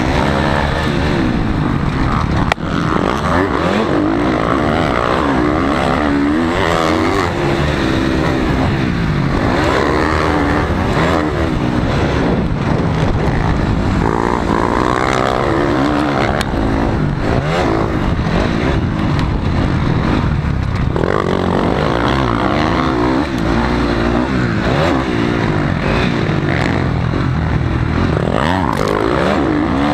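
Dirt bike engine ridden hard round a motocross track, revving up and falling back over and over with the throttle and gear changes. A single sharp knock about two and a half seconds in.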